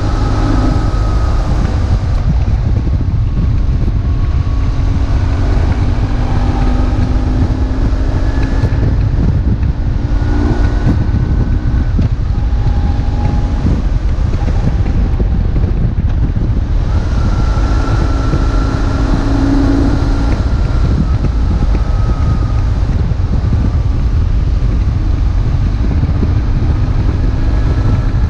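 BMW R1150GS boxer-twin engine running on the move, its note slowly rising and falling with speed, under heavy wind buffeting on the microphone.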